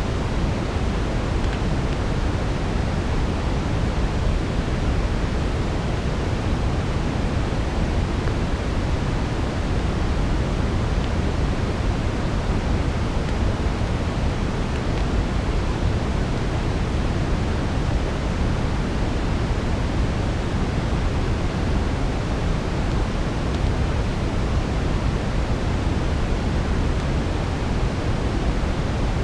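Steady brown noise, a deep even hiss weighted toward the low end, blended with a soft fire texture; no distinct crackles stand out.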